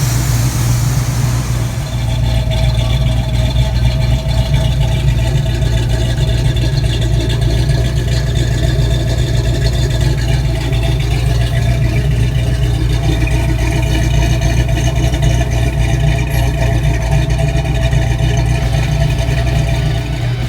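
Freshly rebuilt Pontiac 455 V8, just broken in, idling steadily at its final idle speed with a nice little rumble after the timing and carburetor have been adjusted.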